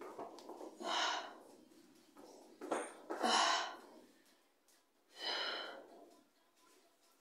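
A person breathing hard after exercise: three loud, heavy breaths about two seconds apart as she catches her breath.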